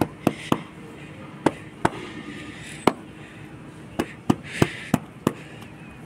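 A hand patting a Labrador's back: about ten sharp, irregular pats and knocks, with faint scuffing between them.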